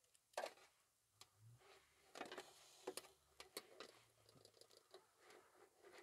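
Faint handling of metal skewers on a steel charcoal grill: a scattering of light clicks and clinks as tomato skewers are laid beside the chicken skewers and the handles are adjusted, the sharpest about half a second in.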